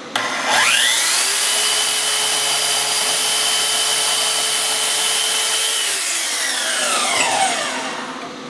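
Electric shop power tool used to trim aluminum flat bar, switched on and off: its motor whine rises to speed within about a second, runs steadily for about five seconds, then falls away as the motor coasts down after switch-off.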